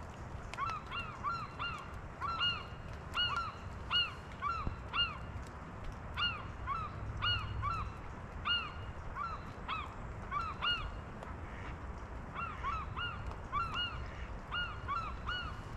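Geese honking again and again, short arched honks often in quick pairs, over a low steady background rumble.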